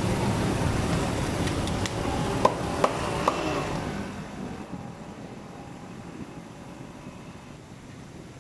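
Busy street-food-stall din with a few sharp slaps and three ringing clinks in quick succession around the middle. After about four seconds it settles to a quieter steady hiss as the pathora fries in the karahi of oil.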